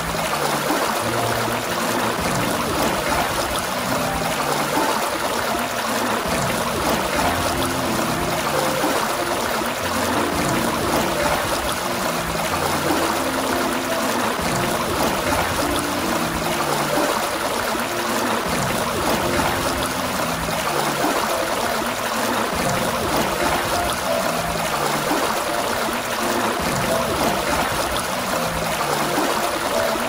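Water gushing from a fountain in a steady, continuous rush with a trickling quality.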